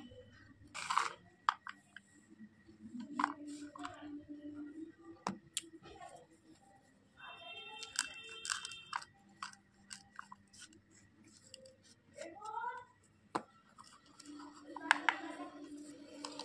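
Hands crumbling and handling dry slate-pencil powder and tipping it from one plastic toy bowl into another: scattered crunches, rustles and small plastic clicks.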